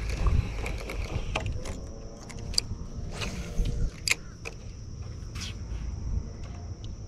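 Spinning rod and reel being cast: a short swish of line leaving the spool a little past the middle, with sharp clicks from the reel handling around it, over a low rumble of wind on the microphone.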